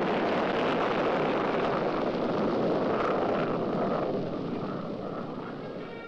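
Tartar surface-to-air missile's rocket motor firing at launch: a loud, steady rushing noise that fades over the last two seconds.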